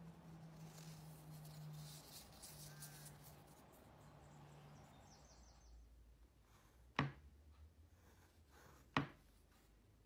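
Faint outdoor ambience with a steady low hum and one brief chirp. Then quieter indoor room tone while a marker pen writes on paper, with two sharp taps about two seconds apart.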